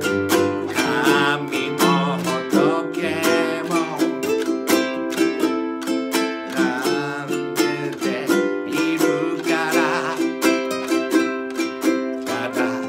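A ukulele strummed in a steady rhythm together with a nylon-string classical guitar, and a man singing a wavering, held melody over them.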